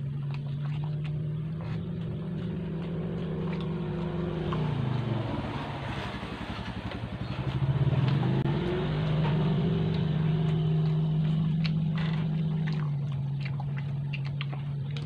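A motor engine running steadily at a low hum; its pitch sags about a third of the way in and then climbs back as it revs up a little, which is where it is loudest. Small clicks of chewing sound over it.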